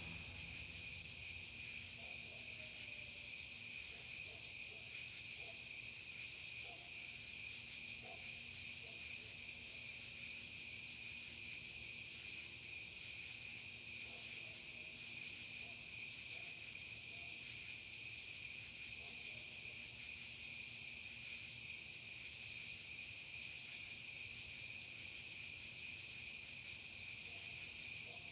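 Faint night ambience of crickets chirping: a steady high trill with a quicker pulsing chirp above it, unbroken throughout.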